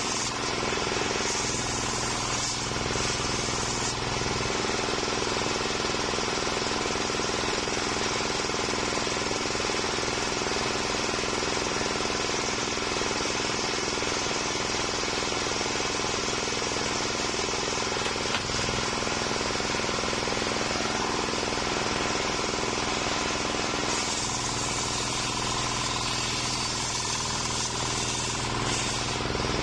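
Stationary engine running steadily, driving a homemade circular saw bench; during the first few seconds the spinning blade rips through a board of waru wood, then the blade runs free.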